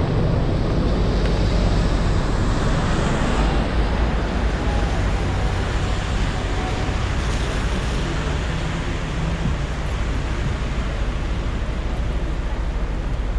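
Steady city traffic noise, a rush of passing vehicles with a low rumble of wind on the microphone; the hiss is louder in the first few seconds, then eases.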